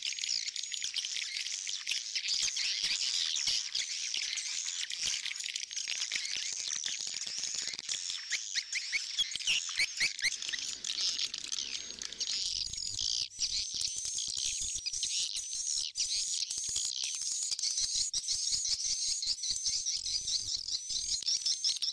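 Swiftlet-farming lure recording of edible-nest swiftlet calls, an old-style ('jadul') call track mixed with a roosting ('inap') call track: dense high chirping laced with rapid clicks. From about halfway through, the chirps settle into an even, repeating pattern.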